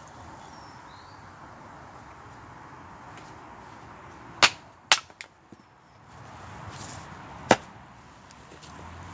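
Four sharp cracks over a steady hiss: three in quick succession about four and a half seconds in, and one more about two seconds later.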